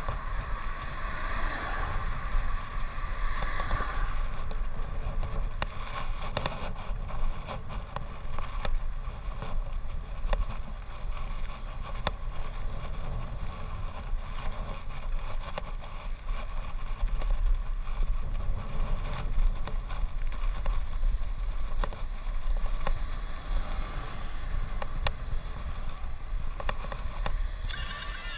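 Wind noise and road rumble on the handlebar camera of a road bicycle riding along a road, with scattered small clicks and rattles from the bike.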